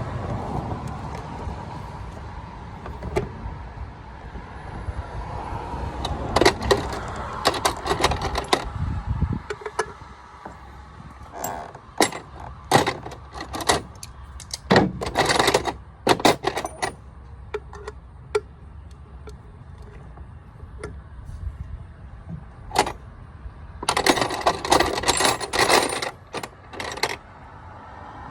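Metal tools and parts clinking and rattling in bursts of sharp clicks, over a low rumble that stops about nine seconds in.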